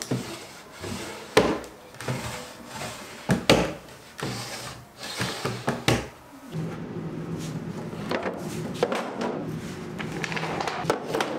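Wooden drawers in a chest of drawers being slid open and pushed shut, with a sharp knock as each one closes: three clear knocks in the first six seconds. After that a steady low hum carries on.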